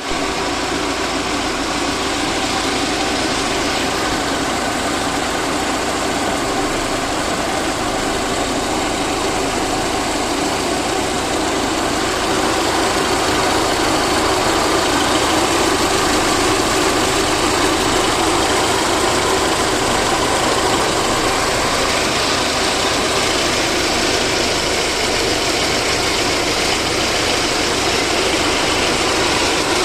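VAZ 2109 (Lada Samara) inline-four engine idling steadily after a full rebuild; it gets a little louder about twelve seconds in.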